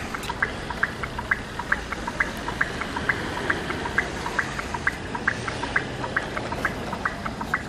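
Footsteps crunching through deep snow, in a steady walking rhythm of about two to three steps a second.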